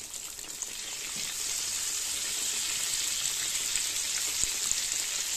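Besan-battered eggplant slices deep-frying in hot oil in a kadhai: a steady high sizzle with fine crackles, growing a little louder about a second in.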